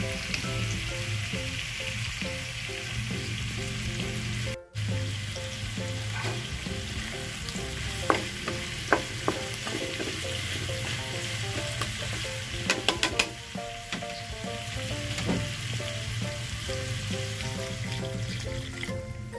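Food sizzling steadily in a cooking pot, with a few sharp clicks of a utensil against the pot, twice about eight and nine seconds in and in a quick cluster near thirteen seconds. Soft background music plays underneath.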